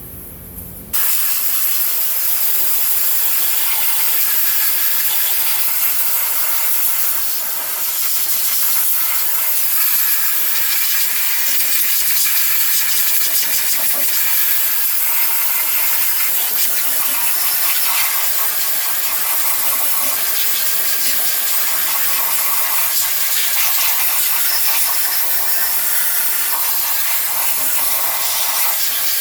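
A high-pressure cleaning jet hissing steadily against engine parts. It starts suddenly about a second in and then runs unbroken, with a slight dip in level near the 7-second mark.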